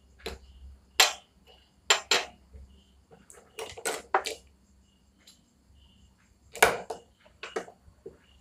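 Hammerhead Flanker 1000 spinning reel and its metal spare spool clinking and knocking as they are handled and set down on a table: a string of irregular sharp knocks, the loudest about a second in and again past six seconds.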